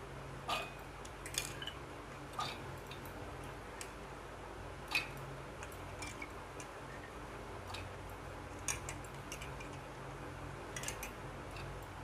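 A handful of sharp clicks and taps, irregularly spaced a second or two apart, from a stainless steel mixer-grinder jar being handled as soaked chana dal goes into it, over a faint steady hum. The mixer motor is not running.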